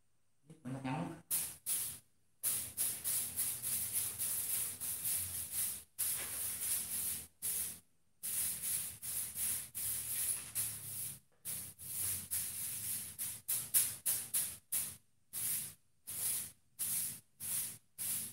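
Hissing noise that keeps cutting in and out abruptly, in stretches from a fraction of a second to a few seconds with dead silence between them. A short rising sound comes about a second in.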